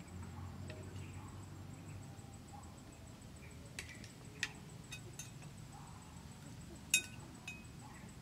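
Metal spoon clinking against plates and dishes as food is served, several sharp clinks from about four seconds in, the loudest near the end.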